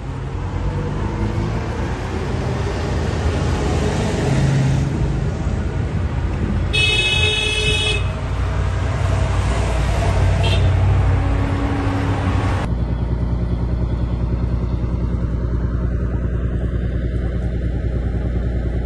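Armoured military vehicles driving past, engines running, with one horn blast of about a second around seven seconds in. About two-thirds of the way through the sound cuts abruptly to a steady low hum.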